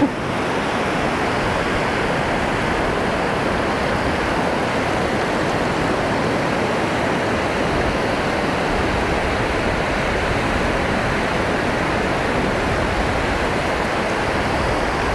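Ocean surf: shallow waves washing up over the sand, making a steady, even rushing noise.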